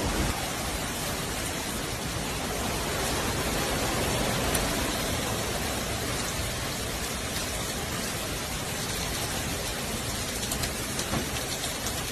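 Heavy thunderstorm rain pouring down steadily: a dense, even hiss of rain.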